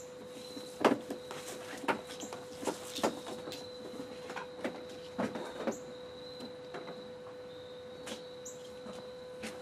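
Irregular clicks, taps and rustles of hands working on wiring in a pickup truck's engine bay, the sharpest knock about a second in, over a steady faint hum.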